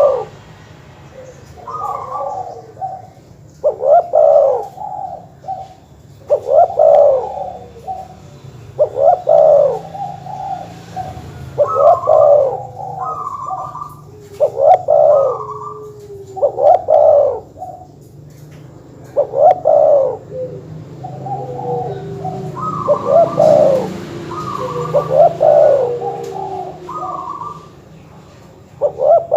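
Doves cooing: short phrases of rhythmic cooing notes repeated about every two and a half seconds, with higher notes in between.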